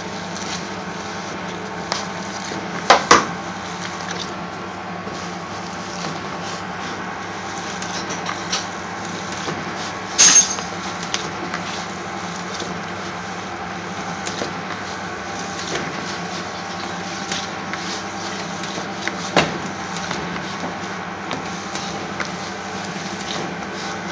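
Raw spiced mince being mixed and kneaded by a gloved hand in a bowl: soft squelching and small clicks, with a few sharp knocks against the bowl, over a steady background hum.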